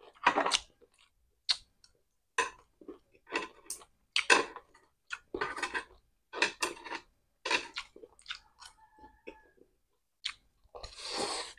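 Close-up chewing of crispy fried egg and pancit noodles: irregular crunchy bites and wet mouth sounds, a few each second. Near the end comes a longer noisy slurp as noodles are drawn in.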